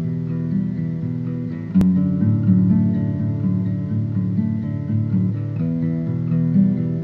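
Background music played on guitar, sustained chords changing every second or so. A brief sharp click about two seconds in, after which the music is a little louder.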